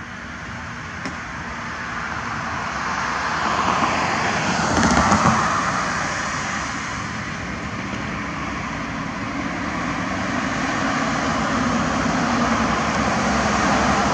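Vehicle noise: a steady rushing drone that slowly grows louder, with a louder pass about five seconds in.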